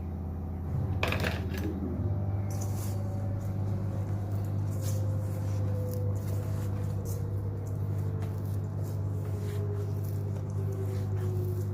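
Bread dough being mixed by hand in a bowl, with repeated light knocks and clinks against the bowl over a steady low hum.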